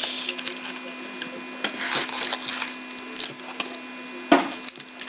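Trading-card hobby box being opened and its foil-wrapped card packs handled and set down on a table: scattered crinkling and rustling, with one sharp knock about four seconds in.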